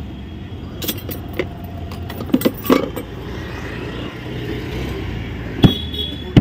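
A few sharp clicks and knocks of small objects and the phone being handled close to the microphone, over a steady low rumble of street traffic.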